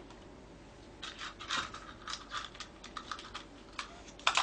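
Small brass lock pins clicking and rattling as a number 1 bottom pin is picked out from among them. An irregular run of light metallic clicks starts about a second in, with the loudest cluster near the end.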